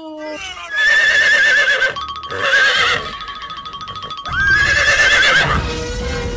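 Horse whinnying, several loud neighs with a shaky, wavering pitch, over background music.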